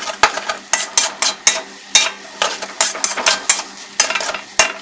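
Spatula scraping and knocking against a wok in quick, irregular strokes, tossing and mixing fried rice with egg.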